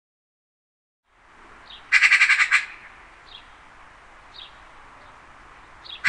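Eurasian magpie giving its chattering call: one loud half-second burst of rapid harsh notes about two seconds in, and another burst starting at the very end. Between the bursts there is faint outdoor background with a few faint short chirps.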